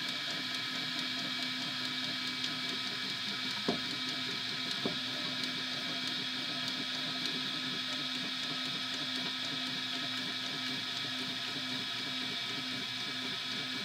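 3D printer running: a steady fan hiss and hum under the whirring of its motors, with two light clicks about four and five seconds in.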